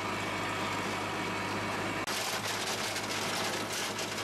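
Diesel tractor engine running steadily under load while the extended scarifier shanks of a Land Pride GS1560 grading scraper rip through a packed gravel driveway, with gravel crunching and rattling. The crunching gets louder and sharper about halfway through.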